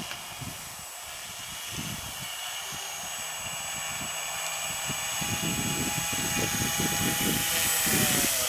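Electric motor and propeller of a Multiplex FunCub RC plane whining steadily as it taxis across snow, growing louder as it nears. Near the end the pitch starts to fall as the throttle comes back. Irregular low rumbles sit underneath.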